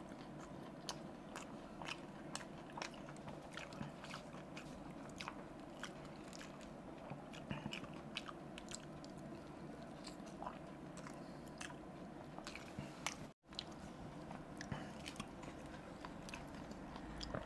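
Faint, close-miked eating of dahi puri: crisp puri shells crunching as they are bitten and chewed, heard as a run of small sharp clicks and crackles. The sound cuts out briefly about two-thirds of the way through.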